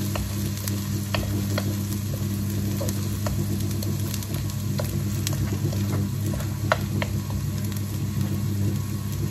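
Chopped onions sizzling in hot oil in a wok as they fry toward golden brown, stirred with a wooden spoon that scrapes and now and then taps against the pan. A steady low hum runs underneath.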